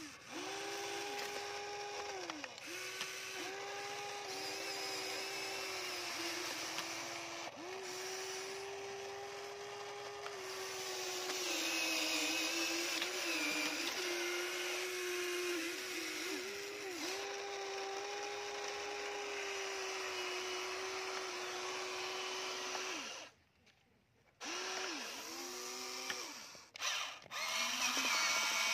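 Huina remote-control toy excavator's electric motors whining as the boom, arm and bucket work. The whine is steady while each motion runs and slides up and down in pitch as it starts and stops, and it cuts out for about a second near the end.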